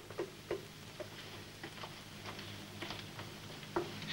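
Faint, irregularly spaced clicks and taps, about half a dozen, over a low steady hum.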